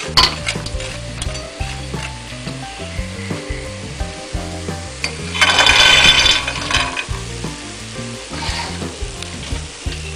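Flour-coated peanuts sizzling as they deep-fry in hot oil, with scattered clicks of stirring and a louder rush of sizzle about halfway through. A soft music melody runs underneath.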